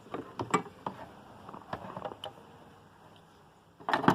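Small irregular clicks and knocks of a screwdriver and plastic switch parts being handled while terminal screws are tightened, with a louder clatter near the end.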